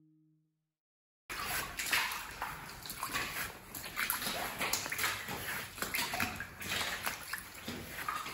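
Silence for about the first second, then footsteps squelching and splashing through thick mud and shallow floodwater on a flooded basement floor, a run of short wet sloshes and splats.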